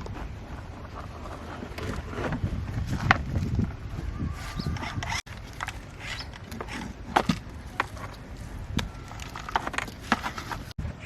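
Irregular knocks, clicks and rubbing, in short clips joined by abrupt cuts.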